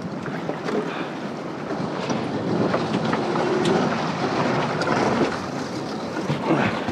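Steady rumbling noise of a small open boat on the water, with many small knocks and clatters.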